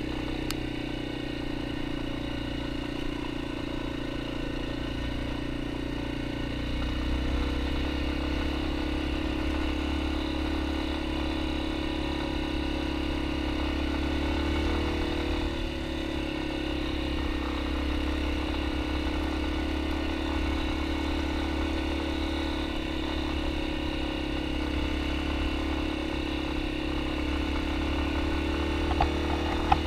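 Yamaha XT250's single-cylinder four-stroke engine running steadily while the bike rides along a dirt road. The engine note shifts a little in pitch as the throttle changes and grows slightly louder about seven seconds in.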